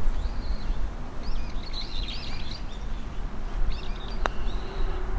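Birds chirping in short calls over a steady low outdoor rumble. A single sharp click about four seconds in is a putter striking a golf ball on the green.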